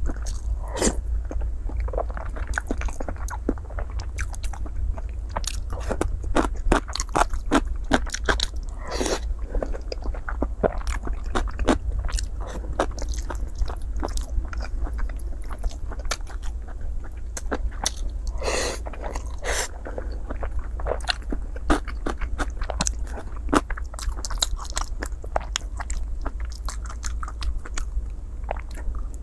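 Close-miked eating: a person biting and chewing braised pork belly and rice, wet chewing with many short sharp mouth clicks and smacks. A steady low hum runs underneath.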